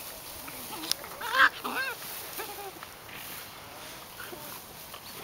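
White Swiss Shepherd puppy squealing and yelping while play-fighting with an adult dog: a quick run of short, high, arching squeals about a second in, then a few faint whines.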